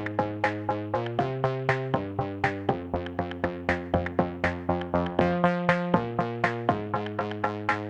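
Background electronic music: synthesizer chords over a steady, quick drum-machine beat.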